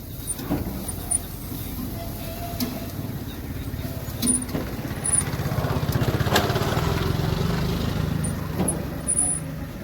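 A motor engine running with a low, steady hum that grows louder through the middle and eases off near the end, with a few sharp clicks and knocks over it.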